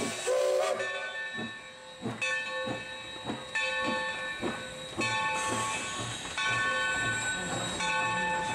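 Steam locomotive hissing steam, mixed with music of held chords that gains a regular low beat about halfway through.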